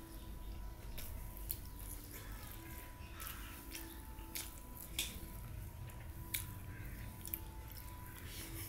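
Eating rice by hand: fingers squeezing and mixing soft rice on a steel plate, with chewing, giving scattered sharp wet clicks and smacks over a faint steady hum.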